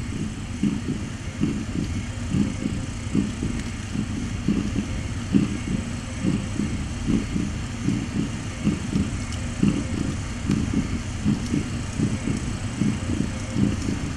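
Domestic cat purring: a steady low rumble that swells and fades in quick, uneven pulses, from a mother cat nursing her kittens.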